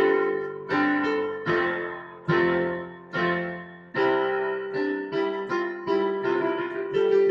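Solo digital piano playing: chords struck about one a second and left to fade, then from about four seconds in a quicker run of notes over a held low note.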